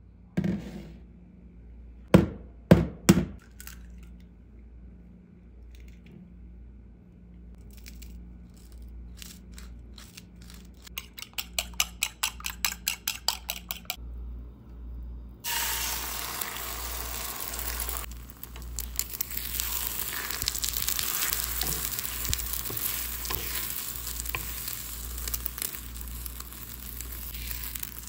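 Eggs sizzling as they fry in hot oil in a nonstick frying pan, stirred with a wooden spatula; the sizzle starts suddenly just past halfway. Before it come three sharp knocks and then a fast run of clicks lasting a few seconds.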